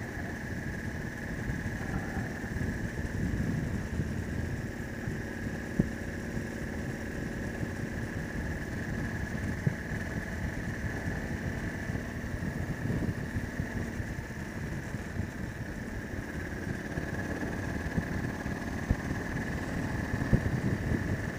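Motorcycle engine running at a steady cruise with low road and wind rumble, picked up by a helmet chin-mounted camera. A steady high whine sits over it, and a few sharp clicks come through along the way.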